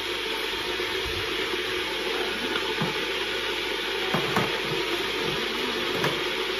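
Steady rushing hiss of an electric kettle heating water, with a few light knocks of items being handled in a cupboard about four seconds in and again near the end.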